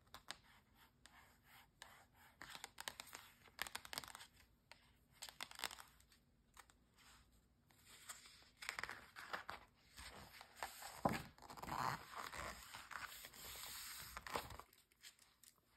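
Long acrylic nails tapping and scratching lightly on a glossy magazine cover, in scattered soft clicks. About halfway through, the cover is lifted and turned over with several seconds of rustling and crinkling paper.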